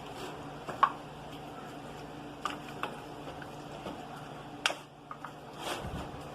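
A few sharp taps and clinks of a pan and utensils being handled, the loudest about a second in and again past the middle, over a steady low hum.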